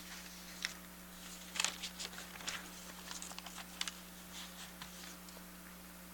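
Faint room sound at a courtroom bench: scattered light clicks and rustles, like papers being handled and a keyboard being typed on, over a steady low hum.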